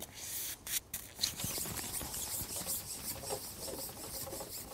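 Long carbon match-fishing pole being shipped out, sliding through the angler's hands with irregular rubbing and scraping, and a few sharper scrapes in the first second and a half.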